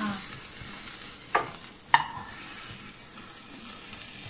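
Omelette sizzling with a steady hiss in a frying pan as it is tipped out onto a plate, with two sharp clinks of metal against the plate about a second and a half in and again half a second later, the second ringing briefly.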